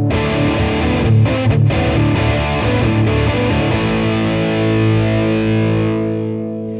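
Electric guitar played through a germanium OCD-style overdrive pedal with the distortion cranked, into a Roland Blues Cube Artist amp: a struck chord, then a quick run of picked notes and chords, ending on a held chord that rings out and slowly fades.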